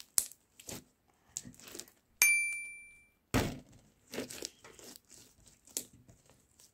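Bubbly slime being squeezed, its trapped air bubbles popping in irregular crackles and pops, with a short ringing clink about two seconds in and a dull thud just after.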